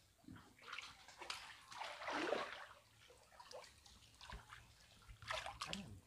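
Water sloshing and splashing around people wading chest-deep and groping by hand underwater, in irregular surges, the loudest about two seconds in and another near the end.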